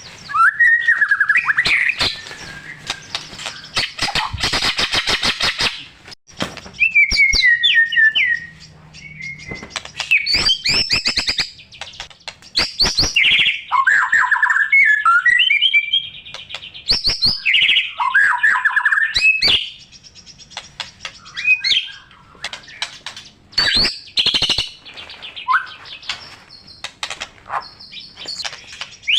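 White-rumped shama (murai batu) singing at full strength, a varied song rich in mimicked phrases. It strings together clear whistles, quick trills and rapid clicking rattles, separated by short pauses.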